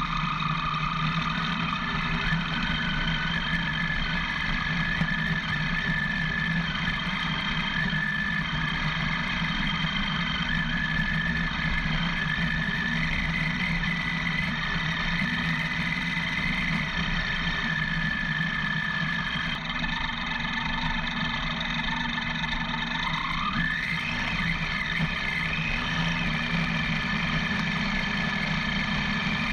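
Motorcycle engine running steadily while riding a dirt track, with a steady whine whose pitch rises briefly about three-quarters of the way through.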